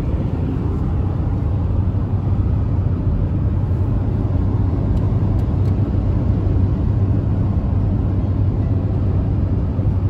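Steady road noise inside the cab of a 2020 Toyota Tacoma 4x4 driving at highway speed: tyres and engine with a constant low hum.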